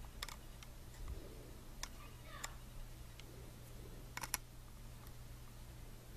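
Faint scattered clicks and taps from handling a car alarm siren's circuit board by hand, over a low steady hum.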